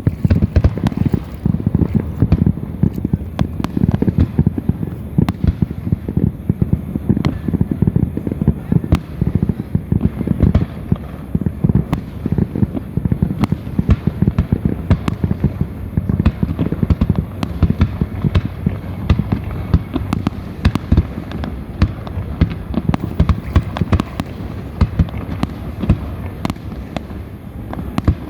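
Fireworks going off in a dense, continuous barrage: many overlapping bangs and crackles, several a second, with deep booms.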